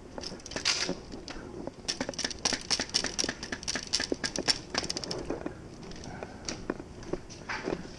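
Irregular quick clicks and light taps of fishing rods and reels being handled and carried, with a denser run of clicks in the middle.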